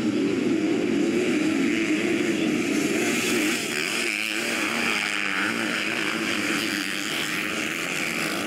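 A pack of motocross dirt bikes racing together, their engines running and revving up and down as they blend into one continuous sound.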